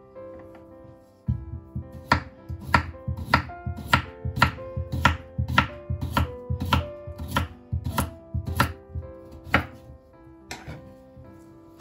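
Knife slicing raw potatoes on a wooden cutting board: a regular series of knocks, a little under two a second, that starts about a second in and stops near the end.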